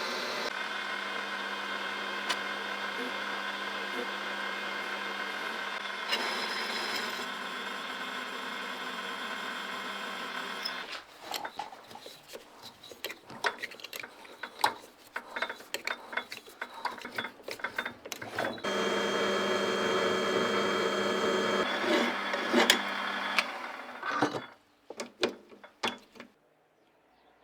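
An electric power tool's motor runs steadily, stops about eleven seconds in, and gives way to scattered clicks and knocks of parts being handled. The motor runs again for about five seconds, then a few more clicks.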